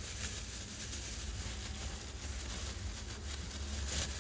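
Thin plastic bag crinkling and rustling in quick, irregular crackles as it is handled, over a low steady hum.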